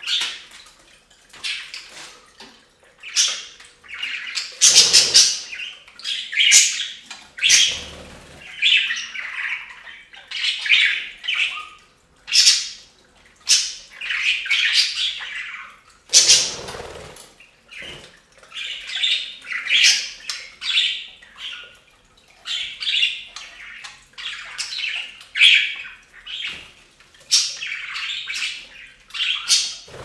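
Budgerigars chattering and chirping continuously in quick warbled bursts. Three louder, fuller bursts stand out, spread through the stretch.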